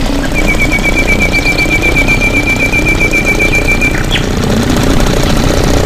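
A motor running steadily with a loud low rumble. Over it a bird gives a rapid, even trill of repeated high chirps lasting about three and a half seconds.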